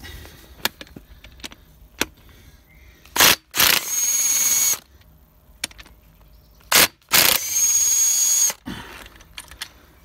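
Snap-on cordless impact wrench undoing the two connecting-rod cap bolts on number four. Twice comes a short burst of hammering, then a steady high whine as the freed bolt spins out, each lasting about a second and a half.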